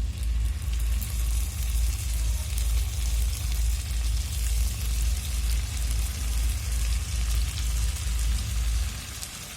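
Fish frying in hot mustard oil, a steady sizzle full of small crackles and pops. Under it runs a low, even thudding about twice a second that stops near the end.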